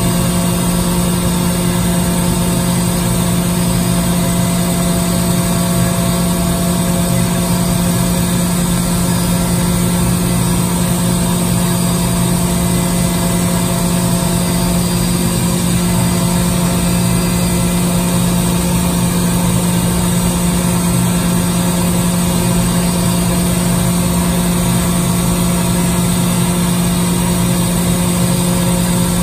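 SNK HPS-120B five-axis horizontal CNC profiler machining a long workpiece under flood coolant: a steady machine drone with a strong, even hum and a hiss of coolant spray that hold unchanged throughout.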